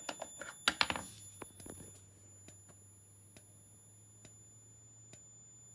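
Edwards Integrity speaker strobe flashing with its speaker removed: a sharp, really loud click from the strobe's flash capacitor a little more than once a second, over a steady low hum.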